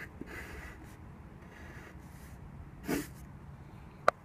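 A short breath through the nose about three seconds in, then a single sharp click near the end, over faint background noise.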